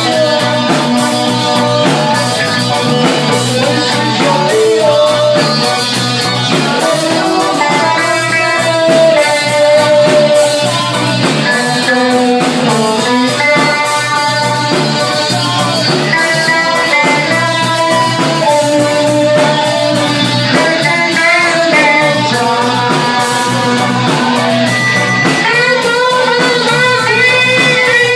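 Live rock band playing: electric guitar over drums, with held and bending guitar notes toward the end.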